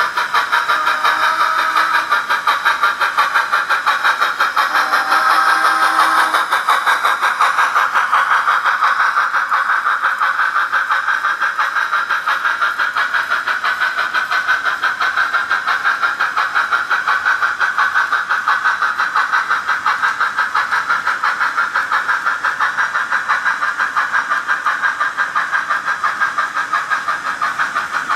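S scale model train running past on the layout: a steady mechanical sound that pulses at a fast, even rhythm. There are a few short held tones in the first six seconds.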